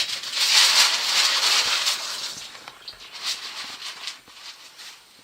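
Baking paper crinkling and rustling as it is handled, loud for about two seconds, then fading to a few scattered crackles.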